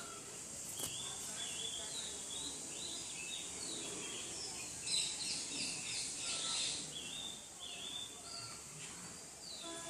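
Several birds chirping, with short, quick calls overlapping, busiest in the middle, over a steady high hiss.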